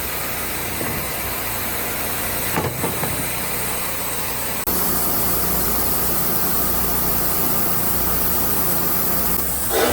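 An engine running steadily. About halfway through, the sound changes abruptly to a steadier, brighter hum, as at an edit, and there is a brief louder noise right at the end.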